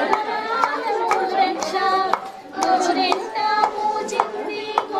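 Women singing a song together while a tall wooden pestle pounds henna leaves in a mortar. The pestle strikes come as sharp knocks about twice a second, slightly irregular, under the singing.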